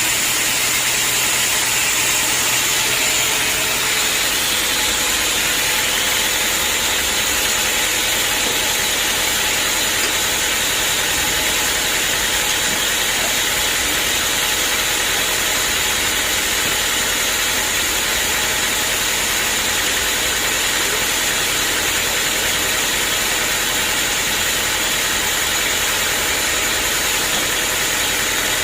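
Sawmill machinery running steadily: a constant engine drone with a steady high-pitched hiss over it, unbroken and even in level.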